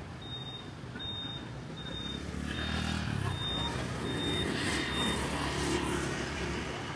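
Street traffic of motorbikes and cars, swelling as vehicles pass close by in the middle. A short high electronic beep repeats about every three-quarters of a second over it and stops about five seconds in.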